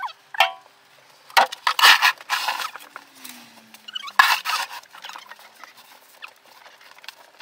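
Snow shovel scraping snow along a paved path in two main long scrapes, about a second and a half in and again about four seconds in, with smaller scrapes between.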